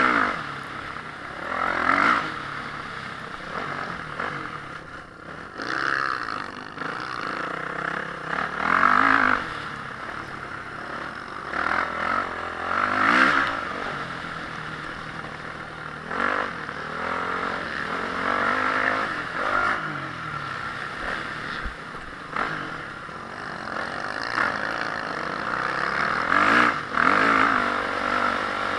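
Honda CRF450R motocross bike's single-cylinder four-stroke engine revving hard and falling off again and again, with a loud swell every two to four seconds as the throttle opens.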